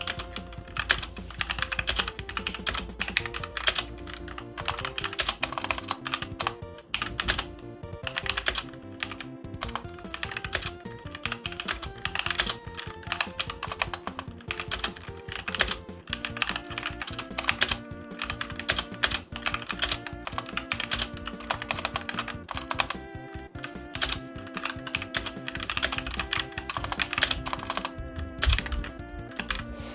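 Rapid, continuous typing on a Motospeed CK61 60% mechanical keyboard with red linear switches, keys striking in quick irregular runs, over background music.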